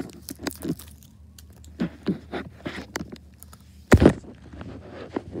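Close handling noise: a fleece blanket rustling, with a string of small plastic clicks and taps as a pacifier is pushed into a plastic baby doll's mouth. A louder rustling knock comes about four seconds in.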